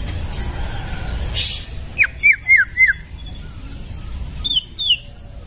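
White-rumped shama (murai batu) calling: a quick run of four clear downslurred whistles about two seconds in, then two higher downslurred notes near the end, over a low steady rumble.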